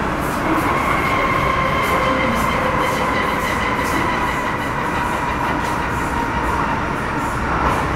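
Interior running noise of an MTR Metro Cammell M-Train electric multiple unit with GEC GTO chopper traction, cruising steadily: a rumble of wheels on rail under a steady whine from the traction equipment, with repeated light clicks.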